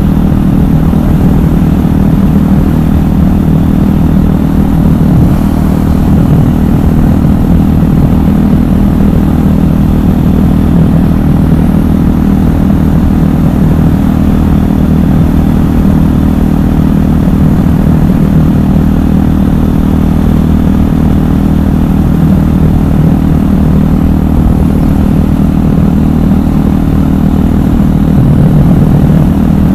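KTM 500 EXC's single-cylinder four-stroke engine running at a fairly steady speed while the bike is ridden, with wind noise over it.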